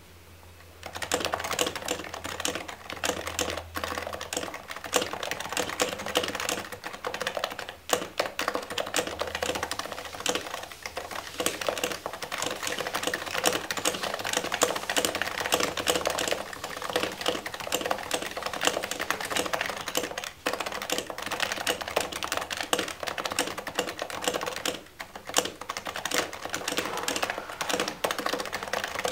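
Continuous typing on an HHKB Type-S keyboard with silenced 45 g Topre electrostatic-capacitive switches: a dense, steady run of soft keystrokes that starts about a second in, with brief pauses.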